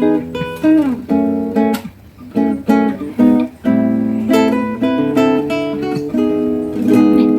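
Background music: a plucked, strummed acoustic guitar tune.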